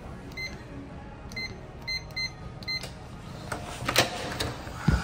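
Electronic door keypad beeping as a code is entered: five short, identical beeps spread over about two and a half seconds. Then the lock and latch click as the knob is turned, and a dull thud near the end as the door swings open.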